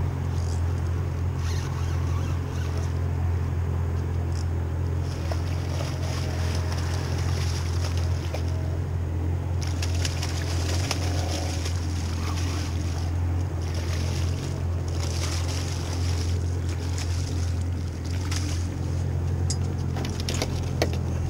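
Yamaha 190 FSH jet boat's engine idling with a steady low hum, while a hooked fish splashes at the surface about ten seconds in.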